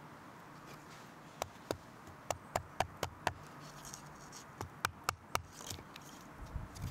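Wooden mallet striking the spine of a knife to drive the blade into a stick, batoning an X for a pot-hanger notch: a series of sharp wooden knocks in two runs, about a dozen in all.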